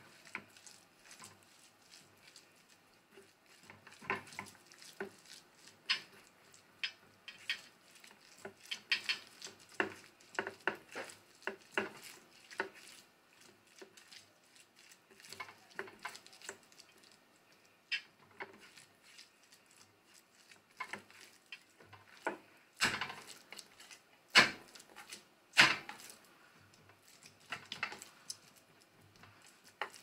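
A hand mixes raw ground pork sausage with seasonings and diced jalapeño in a stainless steel bowl. The mixing makes irregular soft squishing, with ticks and knocks where the fingers hit the metal, and a few louder knocks against the bowl near the end.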